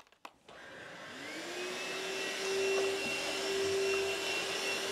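Lightweight budget vacuum cleaner switched on about half a second in, its motor whine rising in pitch as it spins up, then running steadily.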